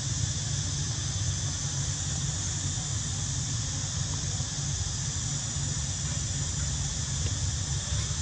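Steady outdoor background: a continuous high hiss over a low rumble, unchanging throughout, with no distinct events.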